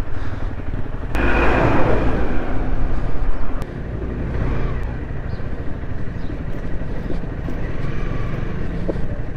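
Car driving on a road, with a steady low engine and road rumble. A louder rushing noise passes between about one and three and a half seconds in.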